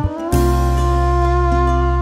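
Instrumental background music: sustained chords, sliding to a new chord just after the start and holding it.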